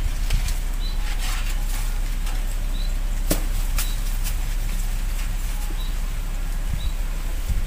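Hands working in garden soil and grass while transplanting seedlings: soft rustling and scraping, with a couple of sharp clicks about three and a half seconds in. A short high chirp repeats about once a second in the background.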